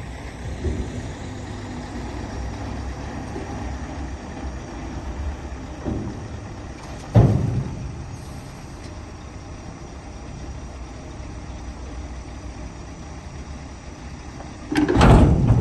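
Scania R730 truck's V8 diesel engine running with a steady low rumble. There is a sharp bang about seven seconds in and a louder burst of noise lasting about a second near the end.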